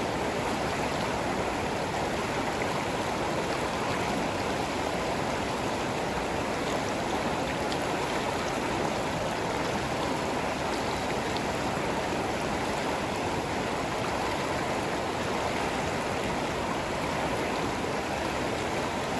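Water of a stream rushing steadily.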